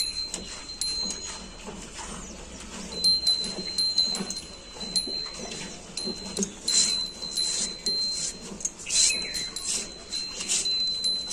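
Hand-milking of a cow by two milkers: uneven squirts of milk into a steel bucket already well filled with frothy milk, with a steady high ringing tone that comes and goes.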